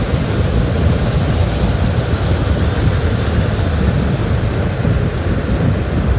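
Steady low rumble and rushing wind noise of a car driving at speed, a dense noise with no distinct knocks or tones.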